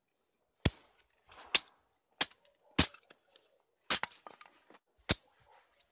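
Split birch firewood giving a series of about seven sharp wooden knocks and cracks at irregular intervals, two of them in quick succession about four seconds in.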